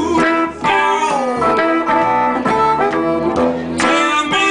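Blues harmonica played through a microphone in long held notes, one sliding down in pitch about a second in, over a hollow-body electric guitar and an upright double bass: a live blues band.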